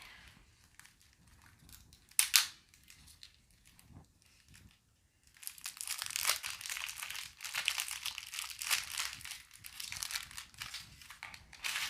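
Plastic wrapping being torn and crinkled off a boxed tarot deck: one sharp rip about two seconds in, then continuous crinkling from about five seconds on.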